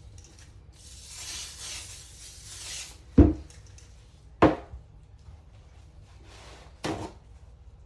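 Rem Oil aerosol can spraying in a hiss of about two seconds, then three knocks, the first the loudest, just after the spray stops.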